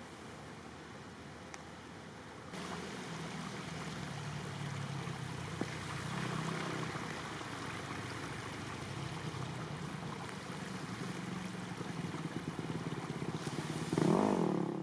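A steady rushing noise, joined about two and a half seconds in by the low hum of an engine running. Near the end comes a louder, brief sound that rises and falls in pitch.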